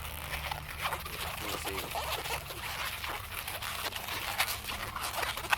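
Latex twisting balloon being handled and twisted, giving a quick run of short rubbery squeaks and rubbing noises.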